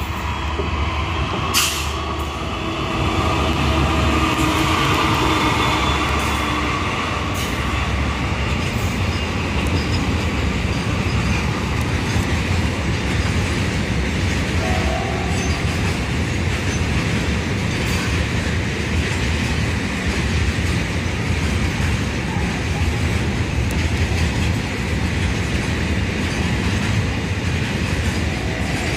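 GE WDG-4G diesel locomotive running past hauling a container freight train, loudest from about three seconds in as it passes. Then the steady rumble of the container wagons rolling by on the rails, with occasional sharp wheel clicks.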